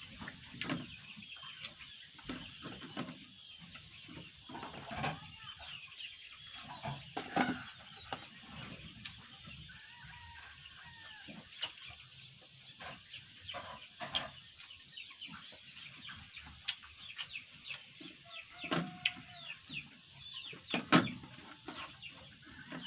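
Chickens clucking in the background over close, irregular chewing and smacking sounds of someone eating chicken with their hands, with one sharp click near the end.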